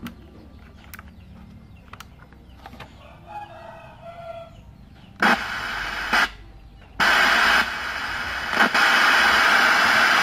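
Radio speaker hissing with loud static that cuts in and out abruptly, twice, as a metal tool touches the solder contacts of the radio's rotary control on the circuit board.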